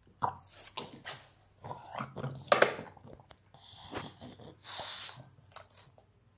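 Pug gnawing on a long stick-shaped chew: irregular crunches and clicks, with breathy noises from the dog in the middle.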